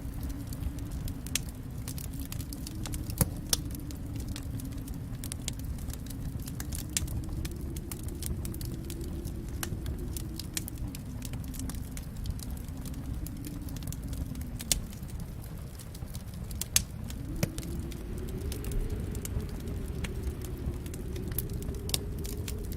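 Fireplace fire crackling: a steady low rumble of the flames under frequent sharp snaps and pops, with a few louder pops now and then.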